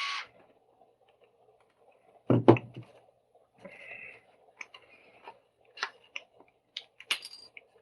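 Plastic headphones being handled and taken apart: a loud double knock a little over two seconds in, a short scrape about a second later, then scattered small clicks.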